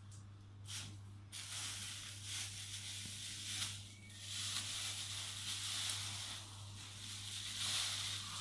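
Thin clear plastic bag rustling and crinkling as it is lifted out of a cardboard box and handled, in uneven swells, over a steady low hum.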